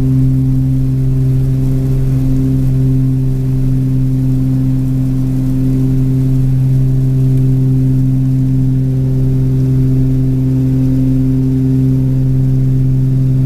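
Twin-engine Cessna's piston engines and propellers droning steadily in flight, heard from inside the cockpit as a loud, even, low hum.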